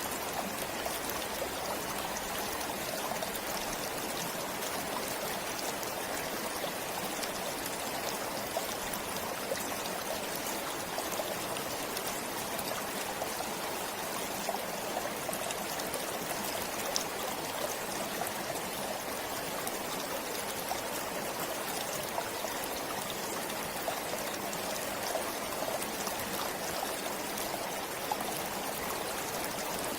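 Forest stream flowing steadily, a continuous rush of water with small trickles and splashes.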